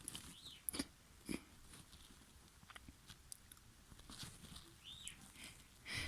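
Faint sniffling, breathing and small wet mouth and nose clicks from a person with a snotty, runny nose, with two short high squeaky breaths and a louder breath near the end.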